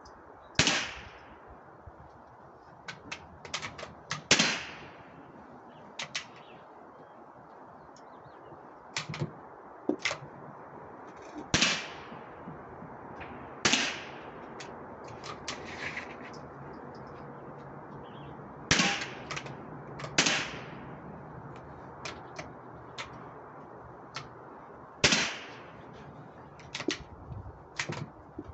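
Rifle shots on a firing line: about seven loud, sharp cracks at irregular intervals, each with a short echo, among many fainter cracks and clicks from the other rifles.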